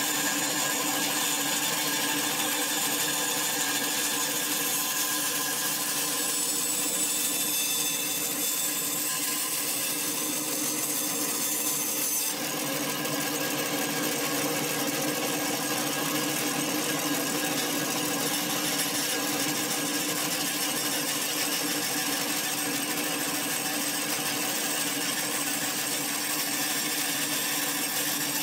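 Bandsaw running with a steady hum while its blade cuts a thin strip of wood along a curved paper template.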